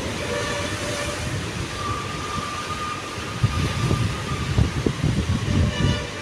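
Wind buffeting the microphone over surf breaking on the rocks, with a distant train's horn sounding: a short blast near the start, a steady held tone for about two seconds, and another short blast near the end.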